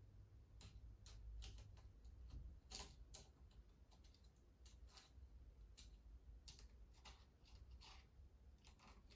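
Faint, irregular small clicks and ticks of scope-mount screws and a small tool being handled and turned, as the scope mount is fitted back onto an air rifle.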